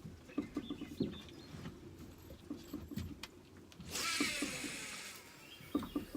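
Light knocks and clicks of fishing gear being handled in a boat, then a cast about four seconds in: a hiss of line running off the fishing reel that fades over about a second, followed by a few clicks as the reel is engaged.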